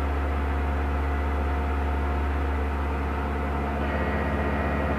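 Tormach PCNC 1100 CNC mill's spindle running a long end mill through an aluminum pocket, a steady machining hum. About four seconds in the sound shifts, with a faint rapid pulsing and a higher whine joining.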